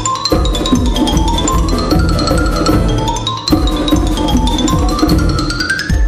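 Background music with a steady beat and repeated rising runs of bright notes.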